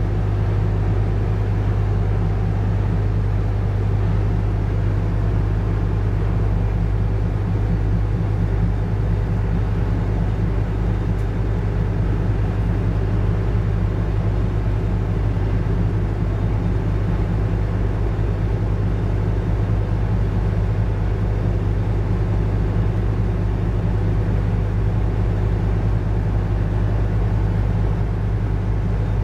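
Car ferry's engines running with a steady low drone, heard from the open upper deck as the ship gets under way out of port.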